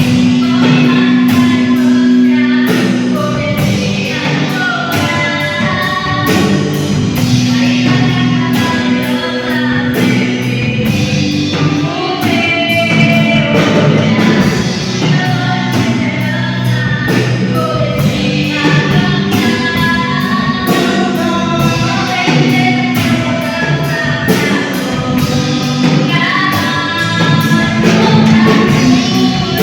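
Gospel worship band playing with singing: vocals over drum kit and guitar with a steady beat.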